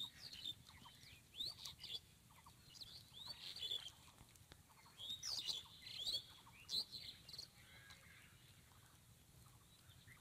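Birds chirping in many short, quick calls, busiest through the first seven seconds or so and then dropping away.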